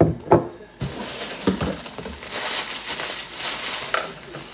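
Packaging crinkling and rustling as a package is unwrapped, after two knocks at the start, with a few light knocks along the way.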